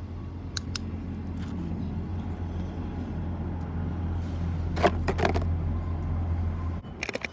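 A vehicle running with a steady low hum that builds slightly. There are several sharp clicks about five seconds in, and the hum cuts off abruptly near the end, followed by a few more clicks.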